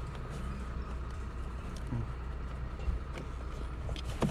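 A steady low rumble with a few light clicks and taps as the car's fabric roller sunshade is handled and folded.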